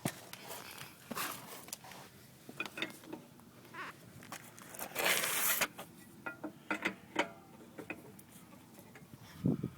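Scattered clinks and knocks of hand tools worked on a car wheel's lug nuts and wheel lock, with a harsh noise lasting about half a second around the middle and a low thump near the end.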